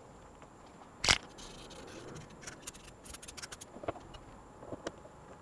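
Handling noises from reassembling a Makita 2012NB thickness planer: a sharp knock about a second in, then a quick run of small clicks and rattles of tools and parts, with a few more taps near the end.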